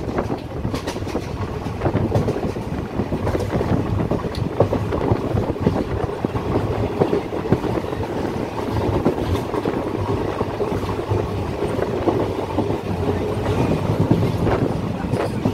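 Train running along the track, heard from on board: a steady rumble of wheels on rail with frequent clicks and knocks.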